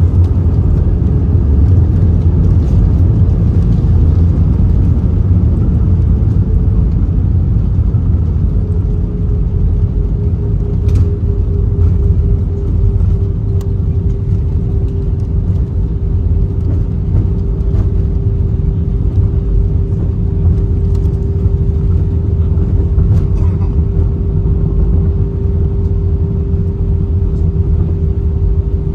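Cabin noise of an Airbus A321-231 rolling along the runway after touchdown: a loud, steady low rumble from the wheels and engines. A steady hum comes in about eight seconds in and holds.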